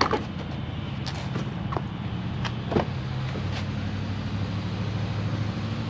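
A car door is handled and opened: a few sharp clicks and knocks, the loudest about three seconds in as the latch releases. A steady low hum runs underneath.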